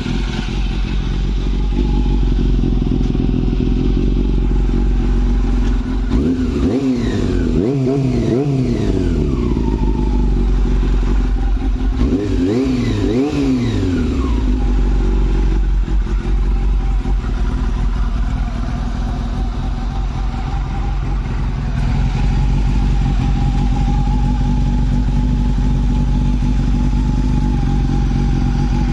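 Honda CB400 Super Four's 399 cc inline-four engine idling steadily, revved in a cluster of quick throttle blips about six seconds in and again about twelve seconds in, each rising and falling back to idle.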